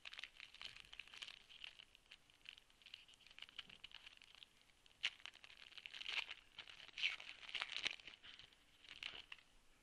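A foil trading-card pack wrapper being torn open and crinkled by hand, a run of crackles and small clicks that get louder in the second half.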